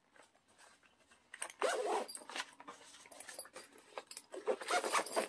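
Backpack zipper being pulled open and shut, with two zipping runs about a second and a half in and again near the end, among fabric handling noises.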